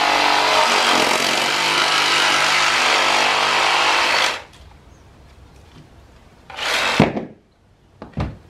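Cordless power tool with a cutting wheel running as it cuts through a fiberglass mortar tube packed with clay, a steady whine that stops about four seconds in. Two brief, sharp noises follow near the end.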